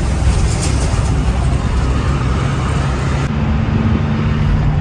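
Engine and road rumble heard inside the cab of a moving truck, steady and loud. About three seconds in the sound changes suddenly to a smoother hum with a steady low drone.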